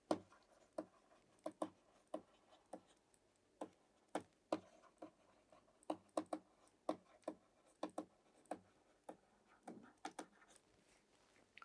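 Pen tip tapping and scratching on a writing tablet during handwriting: light, irregular clicks, about two a second.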